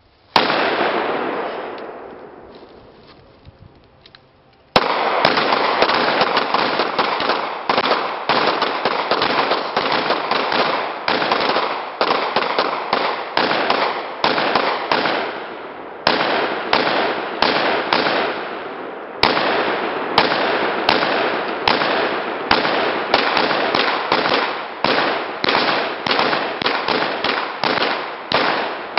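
Several guns, including an AR-style rifle, firing together: one shot with a long echoing decay, then about five seconds in a sustained volley of rapid, overlapping shots with a couple of brief lulls.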